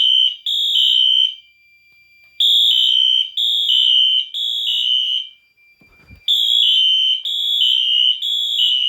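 Wheelock fire-alarm horns sounding the temporal-3 evacuation pattern: three loud pulses, each stepping from a higher to a lower tone, then a pause of about a second, repeating. A faint steady high tone runs underneath, and a brief low thump comes about six seconds in.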